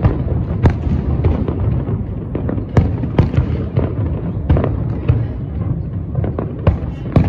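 Distant aerial firework shells bursting in quick succession: irregular sharp booms and cracks, several a second, over a continuous low rumble.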